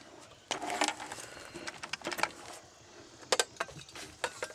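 Hands rummaging through a pile of clutter, shifting and knocking items together: irregular clunks, clicks and rustling.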